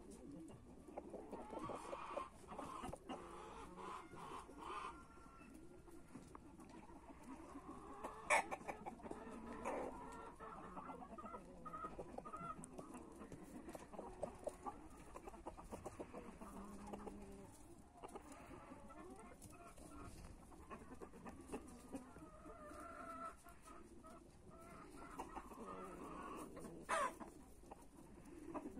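Domestic rooster and hen clucking softly as they forage, with small clicking sounds from pecking. There are two brief, sharper, louder sounds, one about eight seconds in and one near the end.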